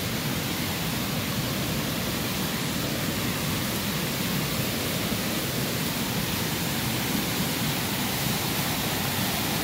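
Steady rush of a muddy river in flood, swollen by storm rain, as a constant even roar of water with no break.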